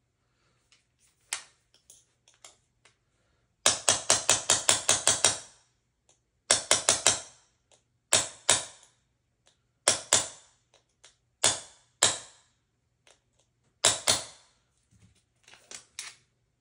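Hammer taps driving a roll pin into an AR-15 buffer. A quick run of about ten light, sharp taps comes a few seconds in, followed by single and paired taps every second or two.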